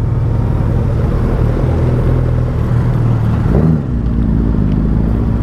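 Suzuki Hayabusa sportbike's inline-four engine running steadily at low revs, heard from the rider's seat, with a second Hayabusa running alongside.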